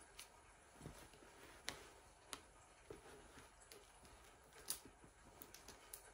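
Near silence broken by scattered small ticks and rustles: a paperback's pages and a pen handled while reading in bed. The loudest tick comes about three-quarters of the way in.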